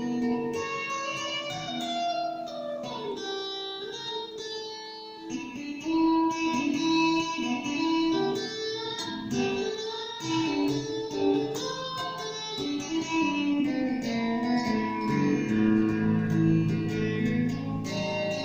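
Revelation RJT60 electric guitar played through a Vox Tonelab amp-modelling processor: picked single notes and short melodic runs. The playing gets louder about five seconds in, and lower notes are held near the end.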